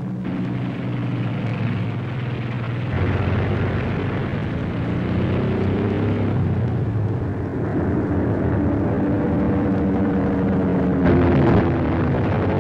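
Propeller aircraft engines running in a steady drone, with the engine pitch drifting up and down. The drone gets louder about three seconds in.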